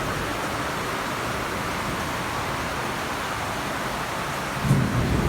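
Heavy rain falling steadily in a thunderstorm, an even hiss. A low rumble swells up near the end.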